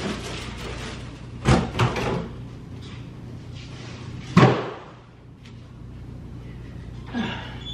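A few dull thumps and knocks from cardboard packaging being carried off and set down, the loudest about four and a half seconds in.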